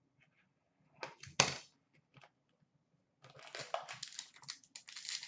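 Hands opening an Upper Deck Ultimate hockey card box: a couple of sharp knocks about a second in, then steady rustling and crinkling of cardboard and packaging as the contents are pulled out.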